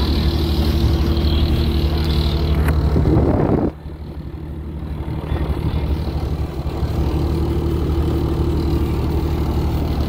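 Bobcat T595 skid steer's diesel engine running steadily at low revs, heard from inside the cab. The sound drops off sharply about four seconds in, then builds back up over the next few seconds.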